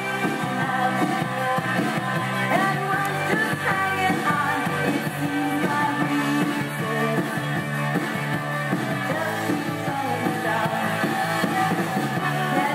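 A rock song with singing, played from a 45 rpm record on a 1949 RCA RP168 record changer whose stereo cartridge is bridged to mono. The music runs steadily with a regular beat.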